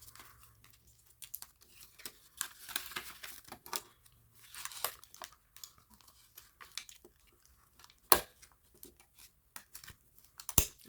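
Paper cash and envelopes being handled and shuffled, rustling and crinkling in quick irregular strokes, with a sharp click about eight seconds in.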